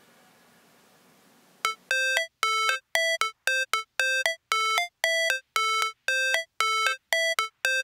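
Background music: after a short near-silent gap, a bright bell-like synth note repeats in short, sharply cut stabs about twice a second, like the intro of a new track.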